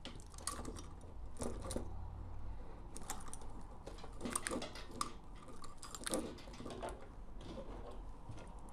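Scattered small clicks and rustles of hands unplugging and pulling away the spare lead wires and plastic connectors from a xenon H1 bulb's base.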